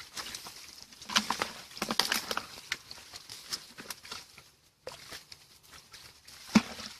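Irregular rustling and crackling of grass and brushy stems being pushed aside and handled, breaking off briefly a little past halfway. A single sharp knock near the end is the loudest sound.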